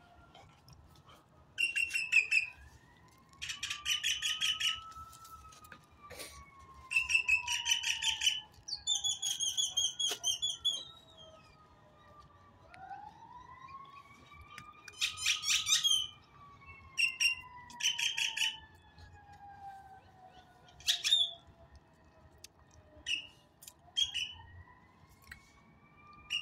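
A songbird chirping in short trilled phrases every second or two, over a faint siren wailing slowly up and down.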